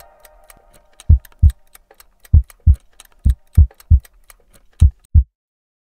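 Sound-design heartbeat: deep lub-dub thumps in pairs about once a second, layered over steady clock ticking, while a musical chord fades away in the first two seconds. The beating and ticking stop abruptly about five seconds in.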